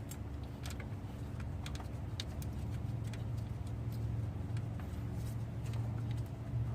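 Scattered, irregular light metallic clicks of hand tools and bolts as the alternator bracket bolts are fitted, over a steady low hum.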